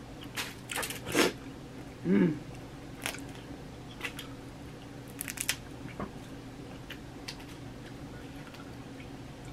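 Boiled crawfish being cracked, peeled by hand and bitten: a run of sharp crackles and snaps of shell through the first six seconds, with a short mouth sound about two seconds in, then only faint ticks.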